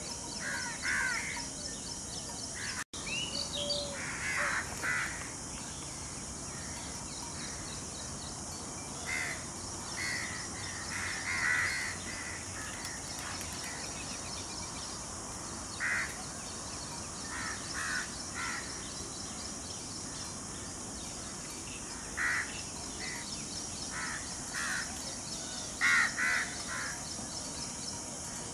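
Wild birds calling: short calls, singly and in quick pairs, every few seconds over a steady high hiss.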